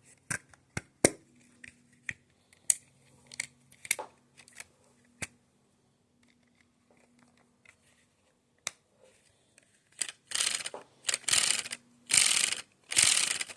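LEGO Technic plastic parts clicking as they are handled and pressed together: a string of sharp separate clicks. About ten seconds in, several louder half-second rattling, rustling bursts follow.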